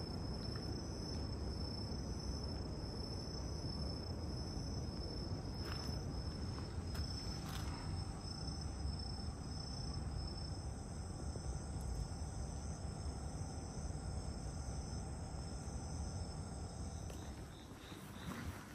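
Crickets chirping steadily in a high, pulsing trill over a low rumble of background noise, fading out near the end.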